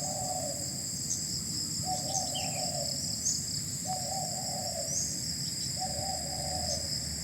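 Insects buzzing steadily. Over them, a bird gives a low call four times, each about a second long and about two seconds apart, with a few faint higher bird chirps.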